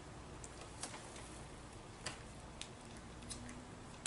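About half a dozen faint, irregular clicks and taps from a small plastic slime container being turned over and handled.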